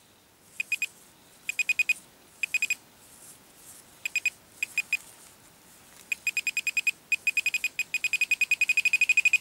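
Minelab Pro-Find 25 pinpointer beeping as it picks up a metal target in the soil. First come short clusters of two to five high beeps, then from about six seconds in a fast, steady run of about eight beeps a second.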